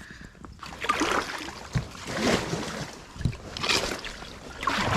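Kayak paddle strokes in the water, a swishing splash about every second and a half, with a couple of dull knocks in between.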